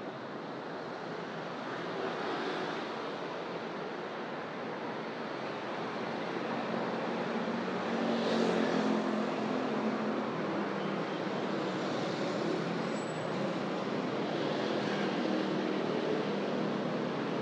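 Road traffic going by, with one vehicle's engine passing louder about eight seconds in.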